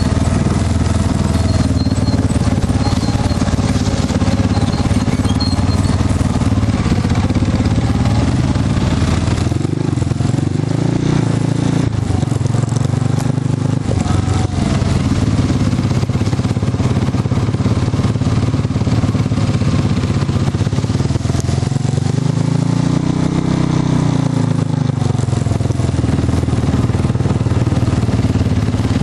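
Off-road vehicle engine running steadily while under way, its pitch rising and falling with the throttle about ten seconds in and again around twenty-three seconds in.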